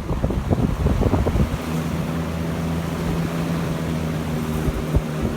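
Galaxy box fan running on a transplanted hybrid motor (a Marco stator and field winding in another motor's end housings), turning its big blade: a steady motor hum under a rush of moving air. The first second and a half is irregular thumping as the air buffets, then it settles into an even running sound.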